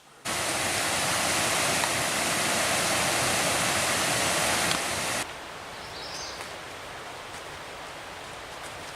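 Loud, steady rushing noise that starts suddenly and cuts off after about five seconds, followed by a quieter steady outdoor background.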